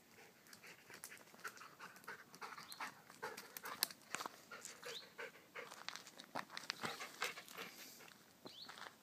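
A dog panting close up, in quick, short breaths several times a second.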